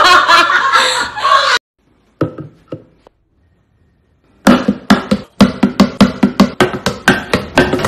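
A woman laughing hard, cut off after about a second and a half. After a near-silent gap, a fast percussive beat of sharp knocks, about four to five a second, starts about four and a half seconds in.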